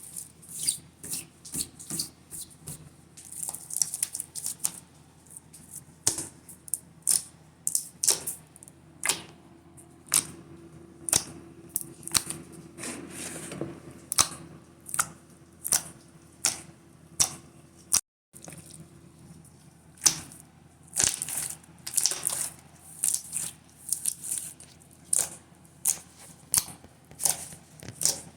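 Homemade glue slime being squeezed and stretched in the hands, giving irregular sharp wet clicks and pops, one to three a second.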